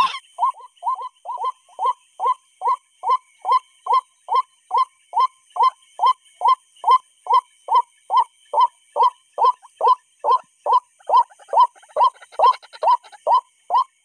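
White-breasted waterhen call, a harsh 'kru-ak' note repeated at a very even rate of about two or three a second, without a break. Its machine-like regularity fits a recorded lure call looped through a bird-caller speaker.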